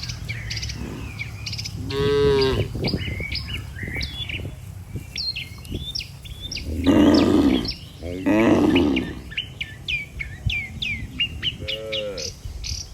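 Cattle mooing four times: a short call about two seconds in, two loud, longer moos a little past the middle, and a shorter one near the end. Small birds chirp throughout.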